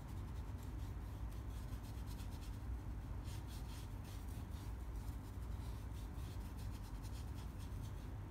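Paintbrush bristles swished back and forth across sketchbook paper, blending wet red paint evenly into the band below, as a run of soft scratchy strokes mostly in the middle. A steady low hum runs underneath.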